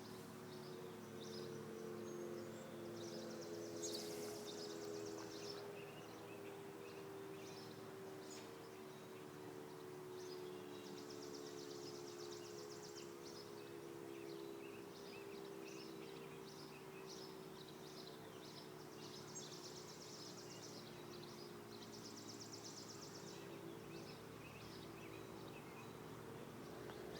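Faint outdoor tornado warning siren sounding a steady alert tone that drifts slowly lower in pitch. Short high trills from insects or birds come and go over it.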